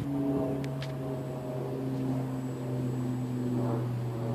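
Electric 1250 kV brushless motor and propeller of a radio-controlled Parkzone P-47 Thunderbolt running at a steady drone, its pitch wavering only slightly.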